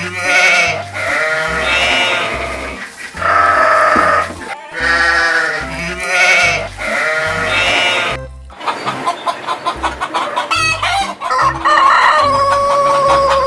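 Goat bleating several times over music with a steady beat. About eight seconds in it gives way to a chicken clucking and a rooster crowing, ending in one long held crow.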